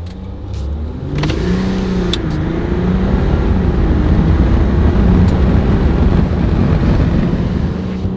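Ram 1500 EcoDiesel's 3.0-litre V6 turbodiesel pulling hard in a full-throttle 0-to-60 mph launch, heard from inside the cab. Its pitch climbs and drops back at each automatic upshift, over rising road and tyre noise.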